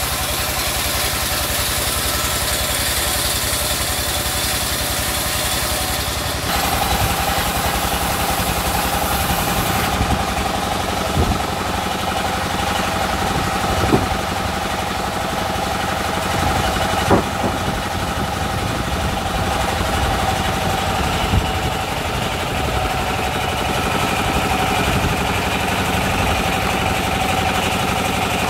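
Belt-driven sawmill band saw and the engine that drives it, running steadily while a log is fed through the blade. The sound changes character about six seconds in. A few sharp knocks, four in all, come between about 11 and 21 seconds.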